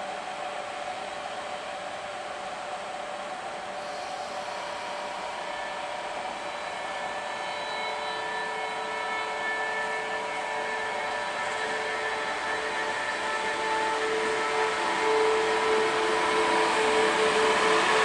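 SBB Re 460 electric locomotive pulling away with its train: a steady blower hiss, joined about four seconds in by a whine of several steady tones from the traction equipment. The sound grows steadily louder as the locomotive comes closer.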